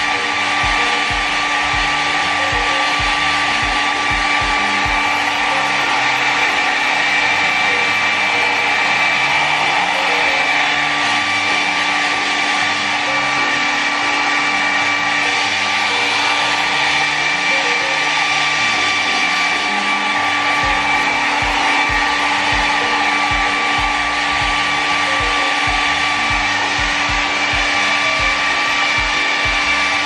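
Kris 600-watt travel hair dryer running steadily on its highest setting: a constant rush of air with a steady motor whine.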